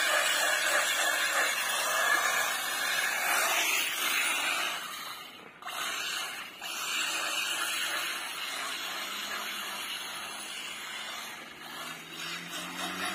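Arrma Kraton 6S brushless electric RC truck running on paving stones, a steady hissing whine of motor and tyres that drops out briefly twice around the middle. A lower whine rises in pitch over the last few seconds.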